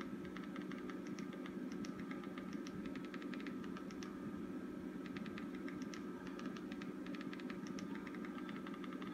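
Runs of quick, light clicks with short pauses between them, from stepping the cursor across a Fire TV on-screen keyboard with the remote, over a steady low electrical hum.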